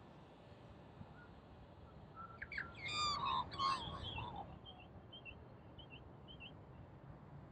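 Australian magpie calling: a loud burst of gliding, warbling notes a little over two seconds in, lasting about two seconds, then a few soft short chirps.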